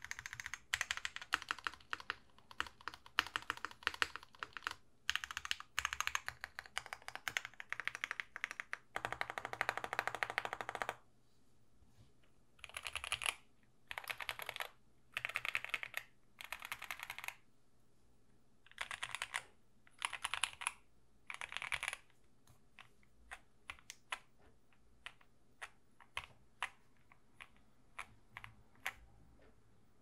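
Typing on an OwLab Mr. Suit (Suit80) gasket-mount TKL mechanical keyboard fitted with Lavender switches. Fast, continuous keystrokes for about the first eleven seconds, then short bursts of rapid presses, then scattered single key presses near the end.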